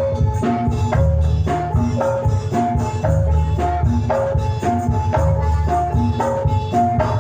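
Javanese gamelan music for a jathilan horse dance, loud through a sound system: metallophones repeat a short melodic figure over drums and a heavy, pulsing bass.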